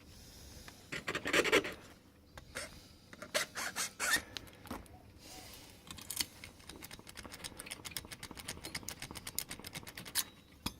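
A hand file rasping across a silver MS2 key blank in short strokes while the key is cut to the impression marks. The strokes come in irregular groups at first, then as a quicker, steadier run in the second half.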